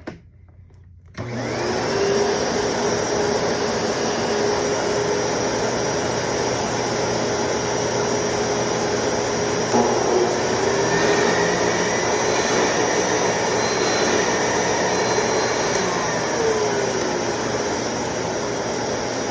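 Kenmore Progressive vacuum cleaner on its highest setting with the brush roll off, switched on about a second in. The motor whine rises as it spins up, then it runs steadily with a loud rush of suction air. There is a brief knock about halfway through, and a motor pitch drops away toward the end as one winds down.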